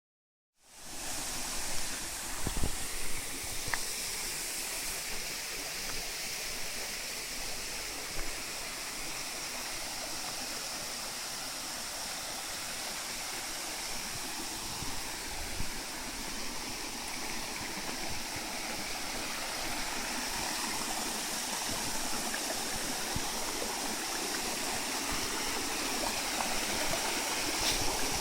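Small waterfall's water falling and splashing in a steady, even rush, with a few low bumps near the start.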